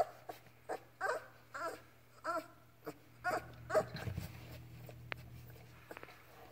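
Young Labrador retriever puppy whimpering: a run of short squeaks, each rising and falling in pitch, about two a second, which stop about four seconds in.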